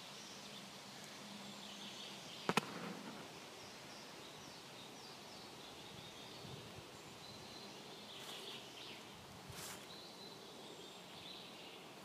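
Quiet forest ambience with faint, scattered birdsong, broken by one sharp click about two and a half seconds in and two softer rustles later on.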